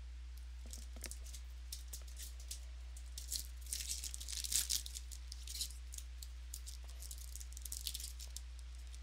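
Crinkling and crackling from trading cards and a card-pack wrapper being handled, a flurry of short crackles that is busiest around the middle, over a steady low electrical hum.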